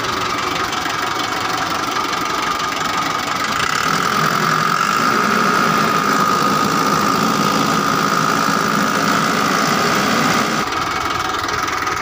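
Diesel engine running steadily after its fuel filter and fuel line were bled of air, the cure for its hard starting. It grows louder and deeper from about four seconds in, then drops back near the end.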